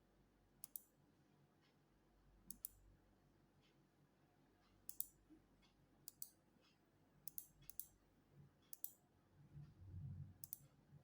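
Faint, sharp clicks at irregular intervals, about eight in all, some coming in quick pairs, with a faint low rumble about ten seconds in.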